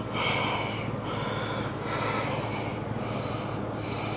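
Ford 4.6-litre V8 idling steadily and evenly, with a faint hiss that swells and fades about once a second. It is running smoothly: the misfire was cured by seating a loose connector that had a broken clip.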